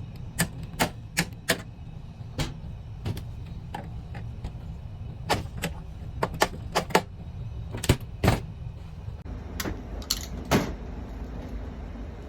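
Irregular sharp clicks and knocks, about twenty, over a steady low rumble.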